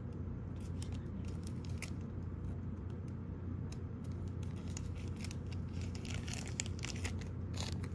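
Plastic cat-treat packet being opened and handled: scattered crinkles and clicks that build into busy rustling over the last two seconds or so, over a steady low hum.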